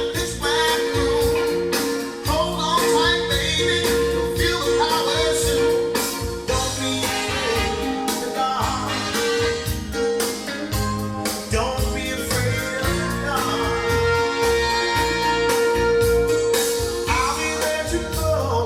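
Blues band recording with singing over bass and drums, played back at a steady level.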